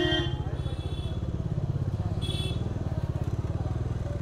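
Motorcycle engine running at low revs with a steady, rapid putter as the bike creeps through a crowded street. Two short horn beeps sound from traffic, one at the very start and a higher one about two seconds later.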